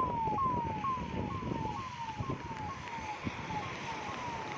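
Emergency siren sounding a quick repeating falling wail, about two sweeps a second, growing fainter. Low rushing noise lies beneath it.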